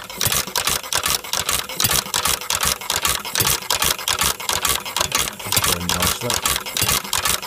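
Home-built Sphinx gas engine running on hot-tube ignition, its moving parts making a fast, even run of clicks.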